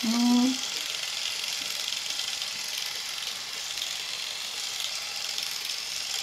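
Nu Skin LumiSpa facial cleansing device running, its oscillating head working cleansing gel over wet skin with a steady, even whirring hiss. A brief voice sound at the very start.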